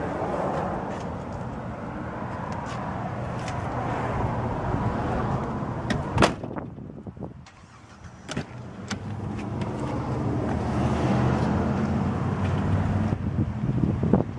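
Motor vehicle noise, steady then building toward the end, broken by two sharp knocks about six and eight seconds in.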